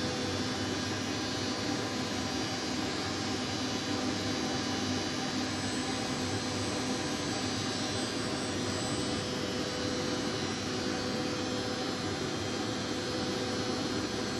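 Steady hum and hiss of running machinery, with a constant low drone. A faint high whine joins for a few seconds around the middle.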